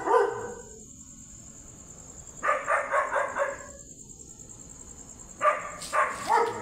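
Dogs barking in bouts of quick barks: a short burst at the start, a run of about five barks from about two and a half seconds in, and another bout from about five and a half seconds in.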